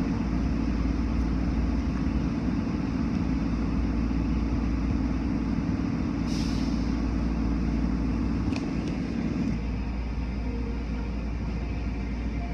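Automatic car wash heard from inside the car: a steady rush and rumble of water spray beating on the car's glass and body, with the wash machinery running. A short hiss comes about six seconds in, and the low rumble eases a little near the end.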